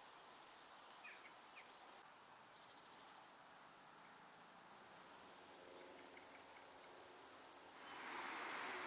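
Faint outdoor ambience with small birds chirping: a few brief calls about a second in and a quick run of high chirps around seven seconds in. Near the end a steady rushing noise of distant traffic rises.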